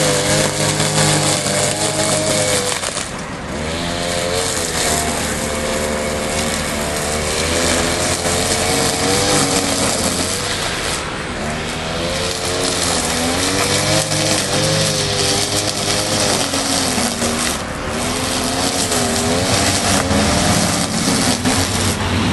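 Oleo-Mac petrol brush cutter's small engine running at high speed, its pitch repeatedly rising and falling as it is worked, with brief dips in level about three, eleven and eighteen seconds in.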